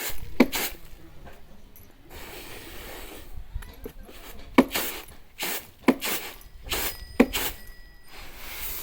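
Harvested rice being threshed by hand: a run of sharp thuds at a steady pace, about one every 1.3 seconds, with a rustling hiss of grain and straw between strokes.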